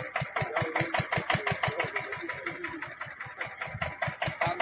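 Stationary diesel engine of a sugarcane juice crusher running steadily, with an even beat of about eight to nine firing thumps a second that grows a little louder near the end.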